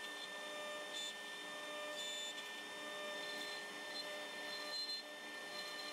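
CNC router spindle running with a steady, quiet whine as the bit takes a roughing pass through cherry.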